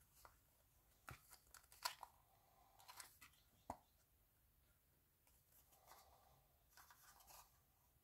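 Faint handling noises from a small printed box being turned over in the hand: a few sharp clicks and light rustles as its lid opens, the loudest clicks about two seconds and nearly four seconds in.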